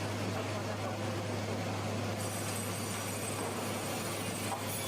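Machinery running steadily: an even mechanical noise over a constant low hum.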